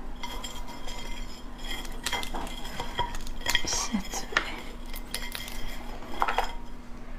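Sharp clicks and crackles of a raw soy-marinated swimming crab's hard shell and legs being handled, with scattered clinks against a ceramic plate.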